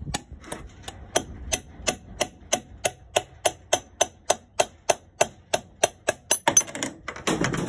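A hammer drives a steel drift punch against the old bearing in a mower blade spindle housing, knocking the bearing out. The strikes ring like metal and come about three a second, closer together near the end.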